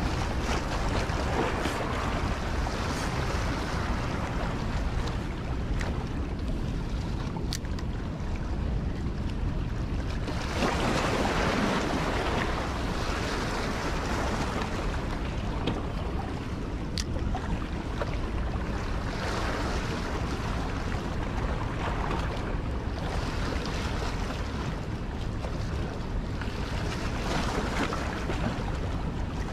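Steady rushing of water from the dam's outflow, mixed with wind buffeting the microphone, swelling louder about a third of the way through.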